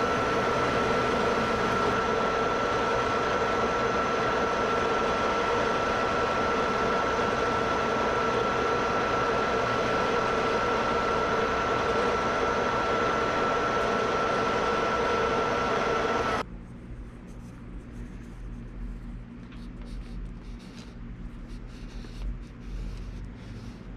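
Martin metal lathe running at speed during a light finishing pass on a steel bar, with a steady whine over the machine noise. About sixteen seconds in it cuts off abruptly, leaving only faint handling noises and light taps.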